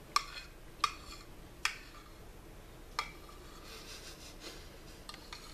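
Spoon clinking against a soup bowl: four sharp clinks with a brief ring, the first three about three-quarters of a second apart and the last about a second and a half later.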